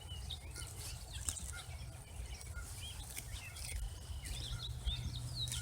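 Small birds chirping outdoors, many short scattered calls over a low steady rumble.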